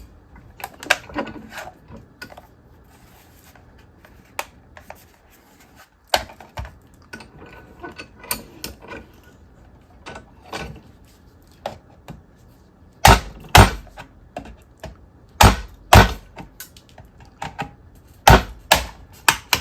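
Plastic switchbox case being pried open along its seam: scattered clicks and cracks, with a group of louder sharp knocks and snaps in the last third.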